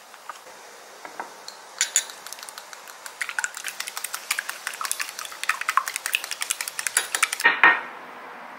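A utensil stirring a mixture in a bowl: quick, irregular clinks against the bowl for several seconds, ending with a louder knock near the end.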